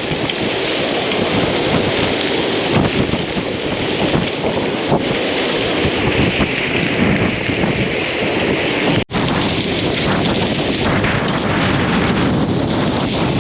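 Strong hurricane wind buffeting the microphone, with heavy rain, in a loud steady rush. The sound cuts out for an instant about nine seconds in.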